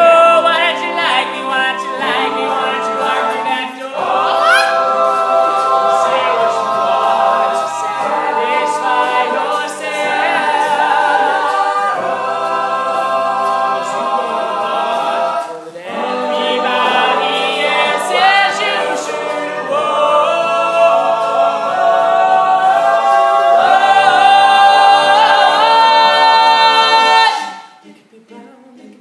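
All-male a cappella group singing in close harmony, a lead voice over the backing voices. The singing cuts off suddenly near the end.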